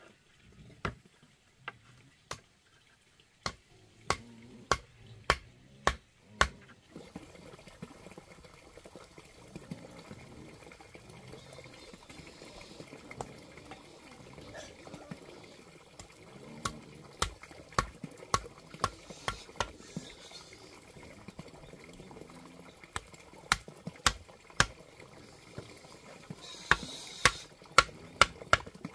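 A hammer striking the wooden formwork boards and stakes. The sharp strikes come roughly every half second, in short runs with pauses between, over a steady hiss.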